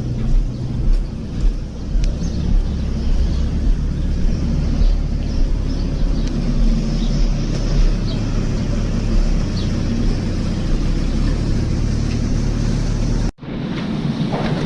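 A steady, loud, low mechanical drone, like a running motor. It cuts out for an instant near the end, then carries on.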